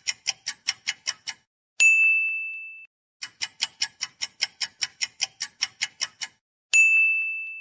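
Sound-effect ticking at about five ticks a second, twice stopping for a bright bell-like ding that rings out and fades over about a second: a random-picker shuffle landing on a pick.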